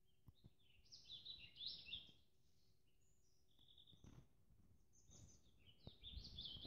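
Faint songbird singing: a run of quick chirping notes about a second in and another near the end, with a few single notes between.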